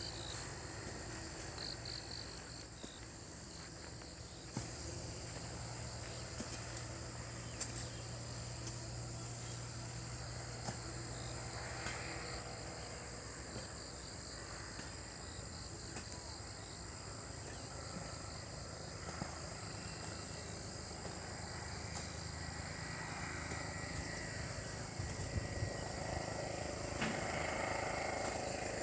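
Insects trilling steadily in a constant high-pitched chorus, with a few faint clicks.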